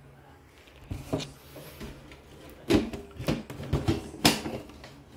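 A series of about six short knocks and clunks spread over a few seconds, with the loudest about two to three seconds in.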